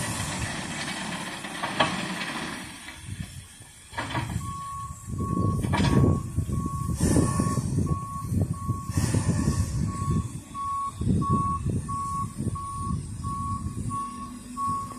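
A vehicle reversing alarm, plausibly the telehandler's, starts about four seconds in and beeps steadily about twice a second over low diesel engine noise. Before it, steam hisses from the stationary steam locomotive.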